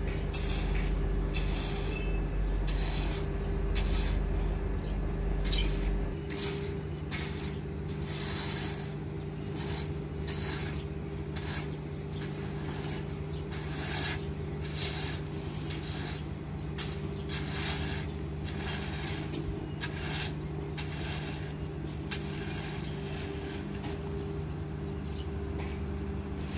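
Steady mechanical hum with a deep rumble that drops away about six seconds in. Over it runs a string of short, irregular scraping rattles from a shovel levelling palm kernels in a truck's load bed.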